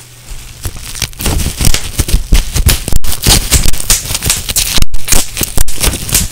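Bubble wrap being popped and crumpled: a rapid, irregular run of sharp pops and crackles that starts faint and grows loud about a second in.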